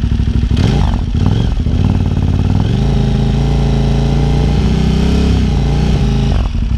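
KTM 990 Super Duke's V-twin blipped from idle, then revved up and held steady at about 3500 rpm for a stationary exhaust-noise test, dropping back to a lumpy idle near the end.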